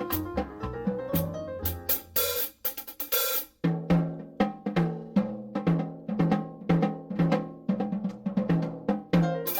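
Background music with drums and cymbals: a drum kit beat over bass and keyboard notes, breaking off briefly about three seconds in before the beat comes back.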